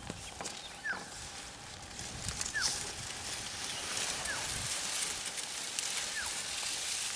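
A bird repeating a short, falling whistled note four times, about every second and a half to two seconds, over a steady outdoor hiss with a few soft low thumps.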